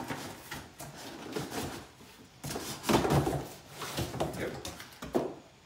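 Cardboard packaging scraping and rustling as a cardboard insert is pulled up out of its box, with knocks against the box; the loudest bout comes about three seconds in.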